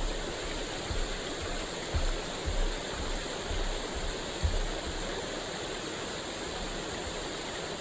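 Steady rush of a mountain stream's running water, with a few low thumps in the first half.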